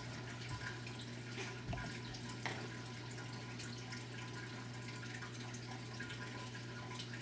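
Steady low hiss with a constant low hum, and a few faint rustles and soft clicks as items are handled and pulled out of a fabric Christmas stocking.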